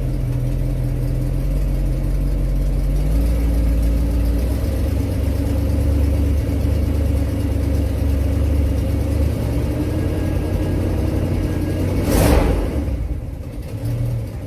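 Car engine running steadily, its pitch shifting slightly about three seconds in, with a brief loud rush of sound about twelve seconds in.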